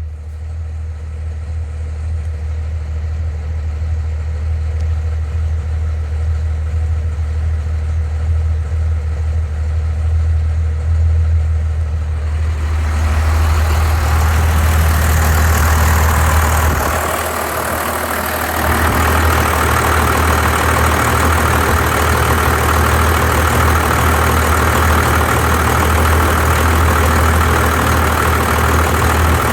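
Cummins 12-valve 5.9 L inline-six turbodiesel idling steadily with a misfire that the owner has not yet traced. Compression reads 400 psi on all six cylinders, and the owner wonders whether the injection pump is to blame. About halfway through, the engine sounds louder and fuller, with a brief dip a few seconds later.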